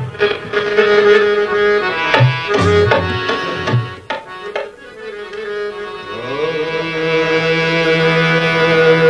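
Sufi devotional music: tabla strokes over sustained harmonium-like reed chords. The drumming stops about four seconds in, and around six seconds in a long note slides up into place and is held.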